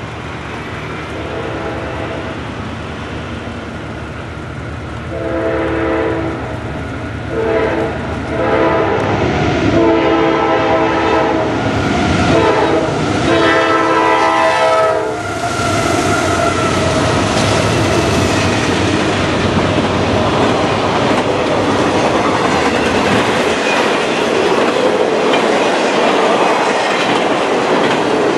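CSX freight train passing close by. The lead diesel locomotive's air horn sounds four blasts at a grade crossing, the last the longest. Then the locomotives go by and intermodal container cars roll past with a steady, loud rattle of wheels on rail.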